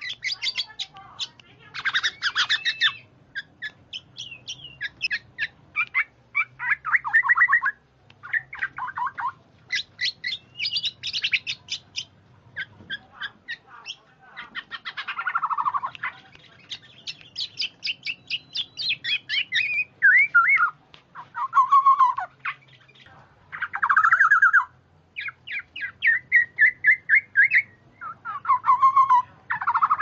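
Oriole (kepodang) calls played as a bird-lure recording: repeated phrases of harsh, rapid chattering notes mixed with short falling notes, each phrase lasting under a second to about two seconds, with brief gaps between them.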